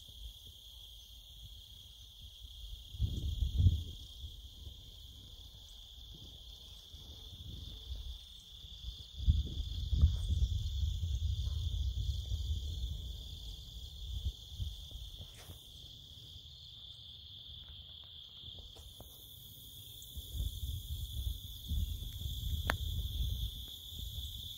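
Insects droning steadily in a high, unbroken band, with bouts of low wind rumble on the microphone about 3 seconds in, again from about 9 to 14 seconds, and once more near the end.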